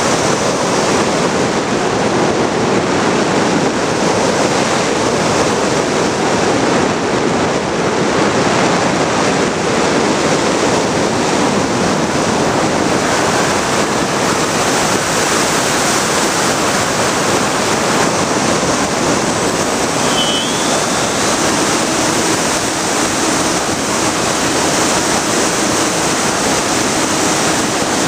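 Loud, steady rush of airflow over the on-board camera's microphone of a Bixler RC plane in flight. A faint steady hum joins it about two-thirds of the way through.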